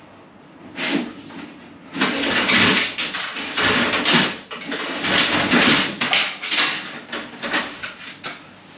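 Electrical cable being pulled by hand down through a downlight hole in the ceiling. From about two seconds in comes a run of rustling, scraping pulls as the cable drags through the ceiling void and the joists.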